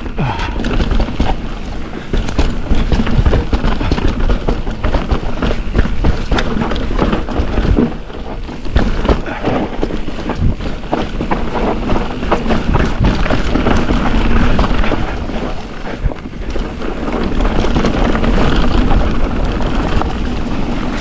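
Mountain bike (Ibis Ripmo V2s) descending a dirt downhill trail: wind rushing over the camera microphone, with tyres on dirt and a constant rattle and knocking of the bike over bumps. The noise eases briefly twice.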